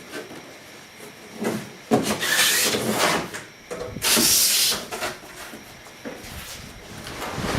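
Handling noise from unpacking a toolbox: a knock about two seconds in, then two loud scraping, rustling rushes, the second one about four seconds in, with quieter rubbing in between.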